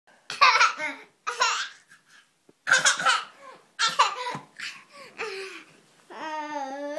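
A toddler laughing in repeated short bursts, ending with one long held vocal sound about six seconds in.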